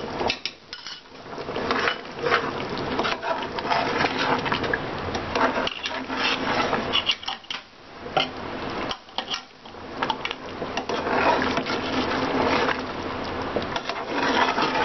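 Metal spoon stirring a thick chicken curry in a metal pot, scraping and clicking against the bottom and sides in uneven strokes with short pauses, as a nut-and-poppy-seed paste is mixed in.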